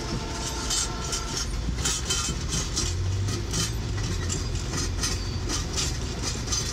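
Passenger cars of the Napa Valley Wine Train rolling past, heard from inside a car: wheels clacking over the rail joints in an uneven run of sharp clicks over a steady low rumble.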